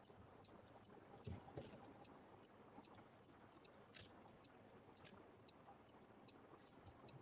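Car turn-signal indicator clicking faintly and evenly, about two and a half sharp ticks a second, with a couple of soft low thuds a little over a second in.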